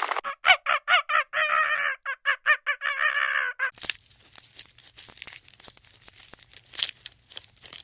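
A chicken calling: a quick run of short clucks breaking into longer drawn-out calls, twice over. After about four seconds it stops, leaving faint scattered clicks and rustling.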